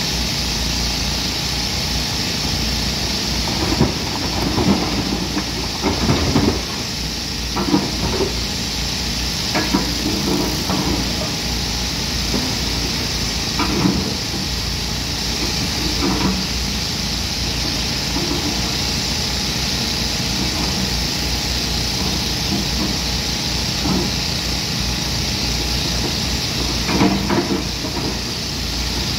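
Hyundai 215 excavator at work: its diesel engine runs steadily under a constant hiss, with intermittent knocks and clatter several times, typical of the bucket digging and dumping material.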